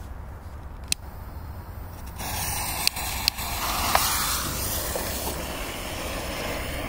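A sharp click about a second in, then a steady hiss of a pyrotechnic smoke bomb burning after ignition, with a few sharp crackles in its first couple of seconds.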